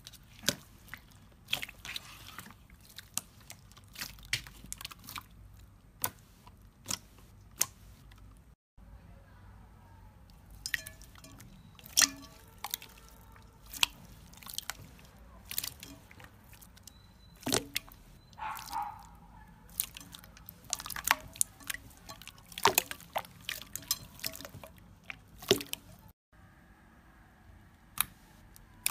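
Clear slime being pressed, poked and stretched by hand, making irregular wet, sticky clicks and pops.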